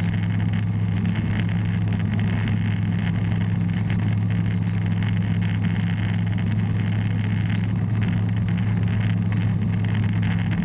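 Bristell light aircraft's engine and propeller running at a steady cruise, a constant low drone with no change in pitch.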